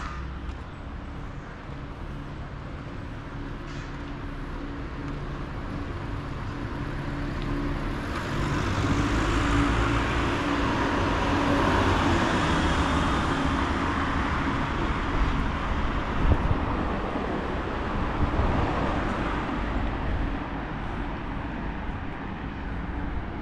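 A car drives past on the street. Its tyre and engine noise builds about a third of the way in, peaks near the middle and fades away slowly, over low steady traffic noise.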